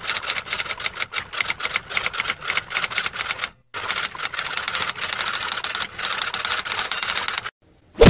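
Rapid typewriter key clacking, about ten sharp strikes a second, with a short break about three and a half seconds in and a stop shortly before the end.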